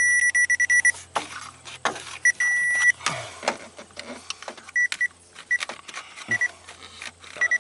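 Power Probe ECT2000 wire-tracer receiver beeping at a high pitch as it is moved along a wiring harness. The beeps come in quick pulses at first, hold as a steady tone a little over two seconds in, break up again later, and turn steady near the end, showing the tracer signal is still present on the wire at that point, so the break lies further along. Clicks and scrapes from the receiver being handled against the harness come in between.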